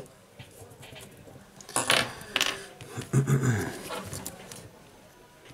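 Hands fitting a tablet's circuit board into its plastic housing: a click, then a cluster of sharp clicks and scraping rustles as the parts are handled and pressed into place. About three seconds in there is a brief hum that falls in pitch.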